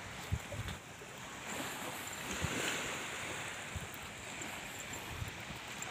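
Small surf washing onto a sandy beach, one wash swelling up about midway, with wind buffeting the phone's microphone.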